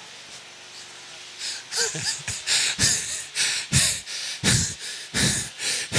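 A person's breathy vocal puffs close to the microphone: after a quiet second and a half, a quick, irregular run of short breaths.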